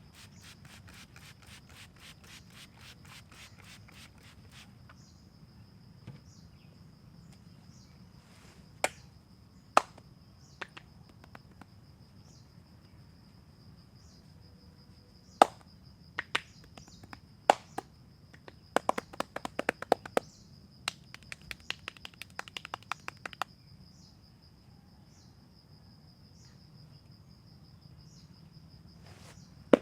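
Sharp hand slaps on the head and neck during a barber's head massage: a few single strokes, then a quick run of chopping strikes lasting about five seconds, near the end. Under them runs a steady high insect drone, with a fast ticking in the first few seconds.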